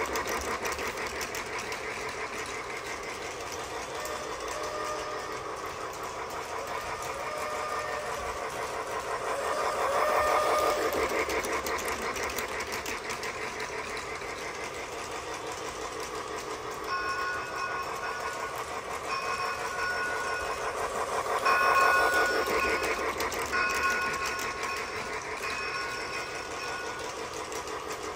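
Battery-powered Lionel toy train running on its track: a steady, fast rattle from its small motor and wheels that swells and fades. From about two-thirds of the way in, a run of short steady tones sounds one after another over the rattle.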